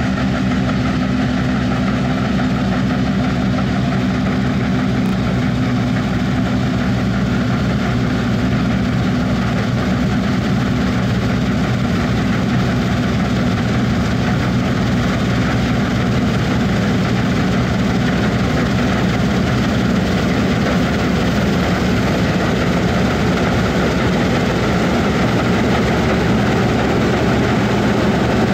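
New Holland CS640 combine harvester running steadily while cutting standing wheat: a loud, even drone of engine and threshing machinery with no break.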